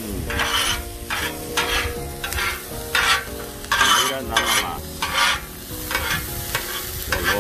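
Two metal spatulas scraping and tossing diced green bell pepper and onion on a Blackstone flat-top griddle, with the vegetables sizzling. The scrapes come in quick strokes, about two a second.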